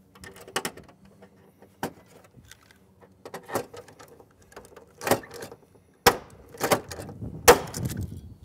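Scattered metallic clicks and a handful of sharp snaps from hand tools on an aluminium aircraft door bracket, as Clecos are fitted with cleco pliers and rivets are set; the loudest snaps come about five to seven and a half seconds in.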